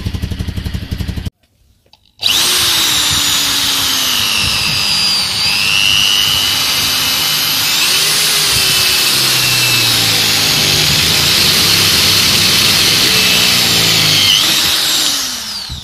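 A motorcycle engine idles for about a second, then cuts off. After a short break, an electric drill runs for about thirteen seconds, boring through the steel of the Minsk X250's stock muffler to open holes that make the exhaust louder. The drill's whine rises and falls in pitch as the bit loads up, and it winds down near the end.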